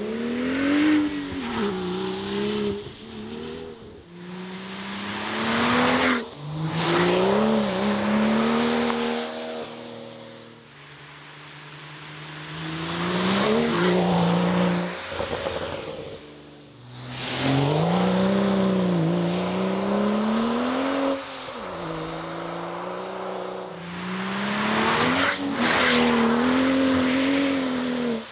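BMW M135i's turbocharged N55 straight-six running through a REMUS turbo-back sport exhaust, accelerating hard in several runs past and away. Its note climbs and then drops in steps at the gear changes, fading between runs.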